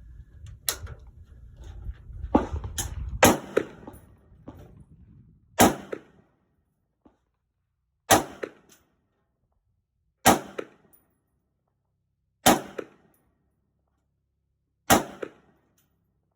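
A string of single rifle shots from a Diamondback DB-10 semi-automatic .308 rifle, each a sharp crack with a short echo. The first few come irregularly, then they settle to slow, aimed fire about every two seconds.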